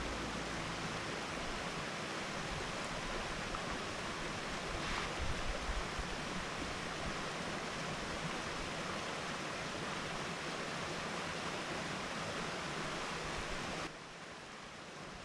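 Steady rushing outdoor noise with no distinct tones. There is a brief knock about five seconds in, and the noise drops suddenly to a lower level near the end.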